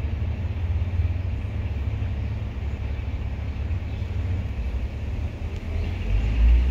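Steady low rumble of outdoor background noise, growing louder about six seconds in.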